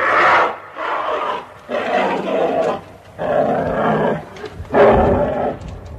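Bear growling in about five short, loud bursts, each under a second long, with brief pauses between them.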